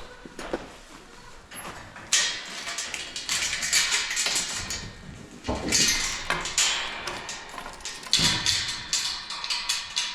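Dry grain poured from a scoop into feed pans, in three pours of a couple of seconds each.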